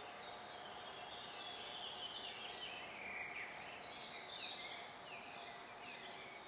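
Songbirds singing in the trees beside the line, a string of short falling chirps, over a faint steady background hum.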